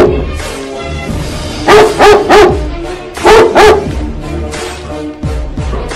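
Šarplaninac livestock guardian dog barking in two quick runs, three barks and then two, over steady background music.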